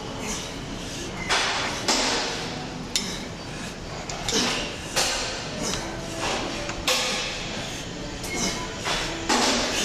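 Gym weights clanking and thudding at irregular intervals, about eight sharp knocks, with a few short rushing noises among them.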